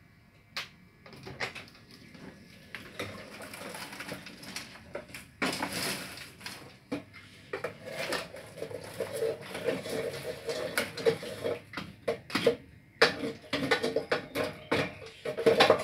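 Popcorn popping in the machine's kettle: irregular pops and clicks, sparse at first and coming thick and fast from about five seconds in, with metal clatter from the kettle. A steady hum joins about eight seconds in.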